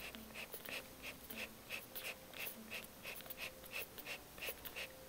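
Two-day-old dachshund puppies suckling at their mother, with soft wet smacking clicks coming quickly and unevenly, about three or four a second.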